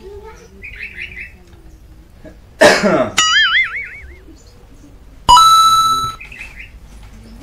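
A short loud cough-like burst about two and a half seconds in, running straight into a wobbling, wavering whistle-like tone that lasts about a second. A little after halfway, a sudden bright ringing chime-like tone fades out within a second, with faint bird chirps in between.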